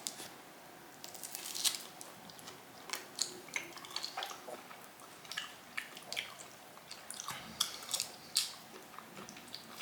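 A person biting and chewing a piece of raw beef, with irregular mouth clicks and smacks.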